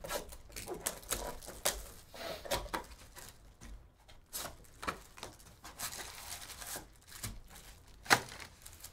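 Plastic shrink-wrap crinkling and tearing as it is stripped off a cardboard trading-card box, with the box opened and foil card packs handled, in a run of irregular rustles and small clicks. A sharp knock about eight seconds in is the loudest sound.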